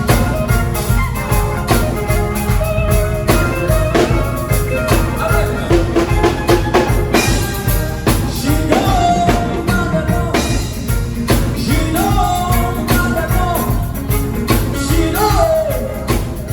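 A live band playing a worship song at rehearsal: drum kit, bass and guitar, with a voice singing over them from about halfway through.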